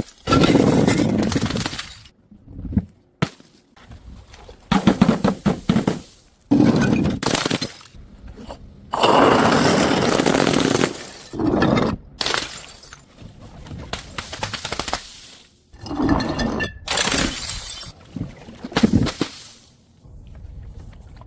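A rapid string of separate breaking and crushing sounds, about a dozen, each lasting a second or two and each cut off abruptly before the next begins.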